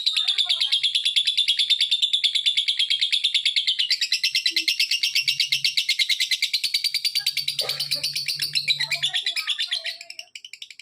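Lovebird ngekek: one long unbroken chatter of rapid, high, sharp chirps, a dozen or more a second, that thins out and stops about ten seconds in.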